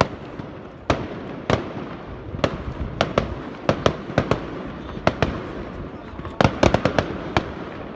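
Aerial fireworks bursting in an irregular series of sharp bangs over a continuous rumble, with a quick cluster of cracks about six and a half seconds in.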